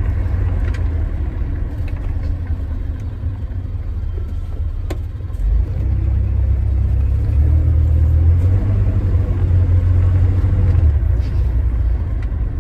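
Inside the cab of a 1992 GMC Sonoma pickup on the move: low, steady engine and road rumble from its 4.3-litre V6, swelling louder for several seconds in the middle as the truck is accelerated hard, then easing off near the end.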